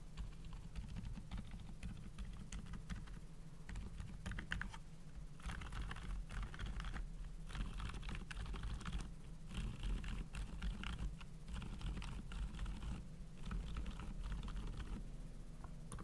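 Typing on a Keychron K2 v2 keyboard built for quiet: Boba U4 Silent tactile switches, a Bobagum Silent spacebar switch, lubed Durock stabilizers, Akko PBT keycaps and shelf-liner case foam. Quick keystrokes, sparse for the first few seconds and then in dense runs.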